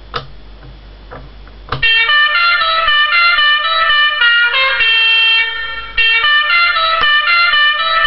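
Musical horn sound effect for an RC vehicle playing a tune of short stepped notes. It starts about two seconds in, after a few faint clicks.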